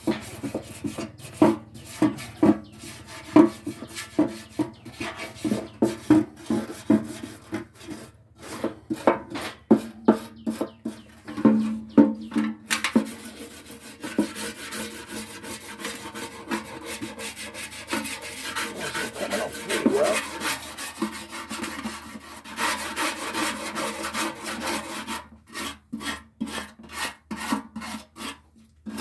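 A brush scrubbing chemical-stripper goo and loosened paint off a motorcycle fuel tank in quick back-and-forth strokes, turning into steadier continuous scrubbing through the middle stretch before separate strokes return near the end.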